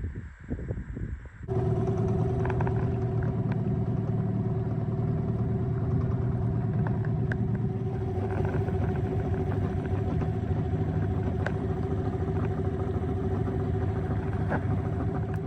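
Outboard motor running at a steady, unchanging speed, cutting in suddenly about a second and a half in.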